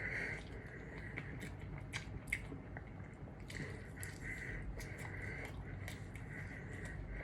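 A person chewing food close to the microphone, with wet mouth clicks and smacks, the sharpest a little over two seconds in.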